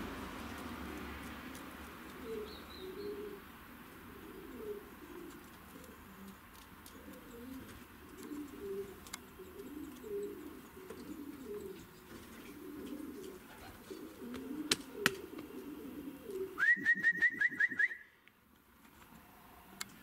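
Maltese pigeon cock cooing: low coos repeated over and over. Near the end a quick run of about eight sharp, high-pitched pulses, the loudest sound here, breaks in and stops abruptly.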